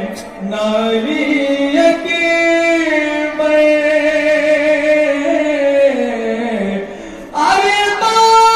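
Nauha, a Shia mourning lament, chanted unaccompanied by young male reciters into microphones, in long drawn-out melodic phrases; after a brief dip, a loud new phrase begins near the end.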